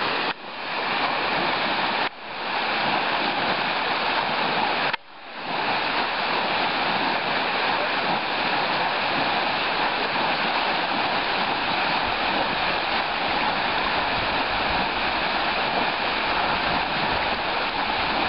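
Water rushing steadily down a concrete dam spillway. The rushing drops out briefly three times in the first five seconds, then runs on unbroken.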